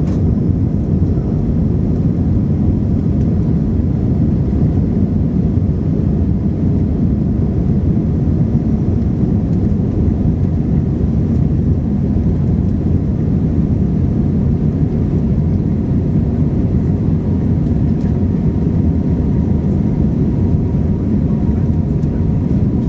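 Cabin noise inside an Airbus airliner climbing just after takeoff: the jet engines and rushing air make a steady, deep, unbroken rumble, heard from a window seat over the wing.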